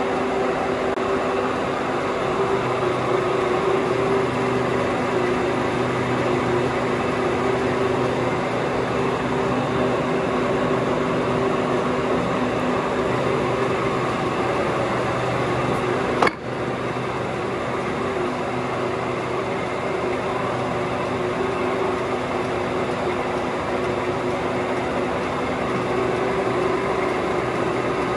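Steady mechanical hum of running machinery, with several steady tones under a noise bed. A single sharp click about sixteen seconds in.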